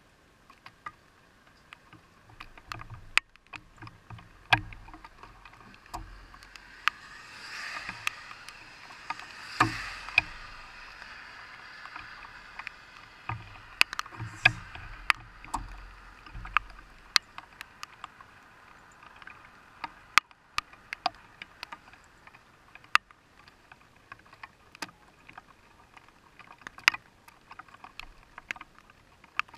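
Raindrops tapping on a parked car's windshield and roof, heard from inside: sharp single taps at irregular intervals, with a few seconds of heavier, hissing rain about a quarter of the way in. A low rumble runs under the first half.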